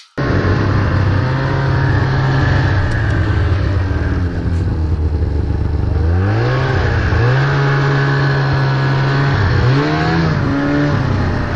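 Snowmobile engine running under throttle through deep powder snow. Its pitch drops and climbs back about halfway through, and dips and rises again briefly near the end as the rider eases off and opens up the throttle.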